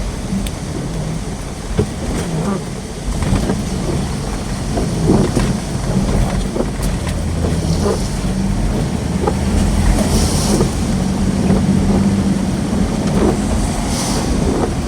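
A vehicle driving, with a steady engine and road hum. Scattered light ticks and taps run through it, and brief hissy swells come about ten and fourteen seconds in.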